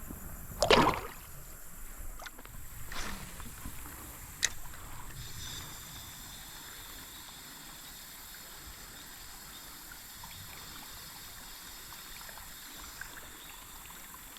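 Water splashing in a shallow creek, loudest about a second in with a smaller splash near three seconds, then a steady faint trickle of flowing creek water.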